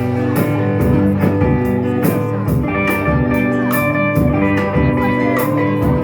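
Live band music in an instrumental passage between sung lines: guitar with a steady drum beat, the cymbal hits falling about twice a second.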